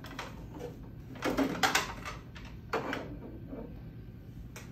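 Hands handling the plastic fittings and controls of an anesthesia gas machine: a few short knocks and clicks, about a second apart.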